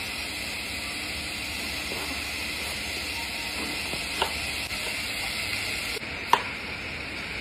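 Chef's knife slicing an eggplant into rounds on a wooden chopping board, the blade knocking the board sharply twice, about four and six seconds in, over a steady hiss.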